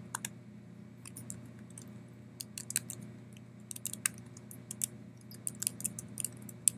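Typing on a computer keyboard: scattered keystrokes at first, then quicker bursts from about two and a half seconds in, over a low steady hum.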